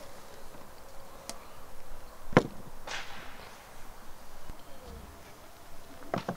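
Small objects knocking as they are set down on a wooden camp table: one clear knock about two and a half seconds in, a lighter one just after, and a quick pair near the end.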